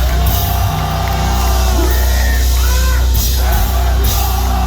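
Heavy metal band playing live and loud, with yelled vocals over a heavy, steady low end.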